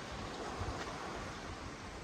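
Steady noise of wind and sea surf, with a light low rumble of wind on the microphone.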